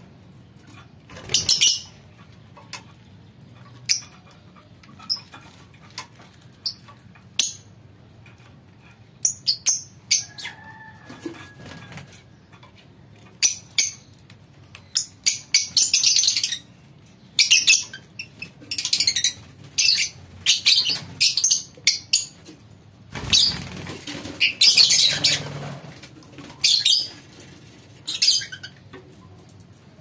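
A flock of lovebirds chattering: many short, sharp high-pitched chirps and squawks in irregular clusters, busier in the second half, with one longer, fuller burst near the end.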